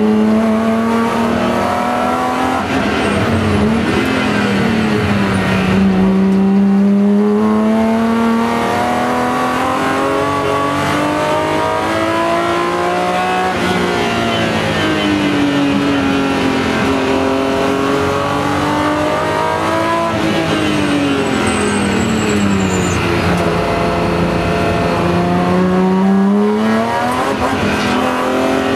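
BMW M3 race car's engine heard from inside the cabin under racing load, its pitch climbing steadily as it accelerates and dipping as it slows for the corners, several times over.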